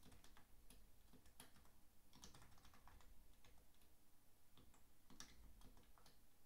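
Faint, irregular keystrokes on a computer keyboard: scattered single key presses with short pauses between them as a shell command is typed.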